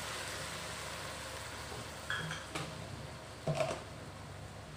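Sauce and freshly added hot water sizzling in a wok, the hiss slowly fading, with two light clinks of dishes about two seconds in and a louder knock about a second later.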